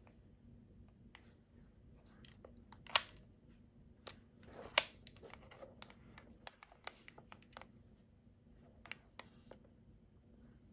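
Hands handling an Olympus Trip AF 50 compact 35mm film camera's plastic body: light rubbing and many small clicks, with two sharp, louder clicks about three and five seconds in.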